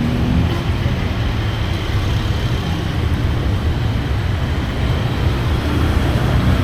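Steady low rumble of busy street traffic.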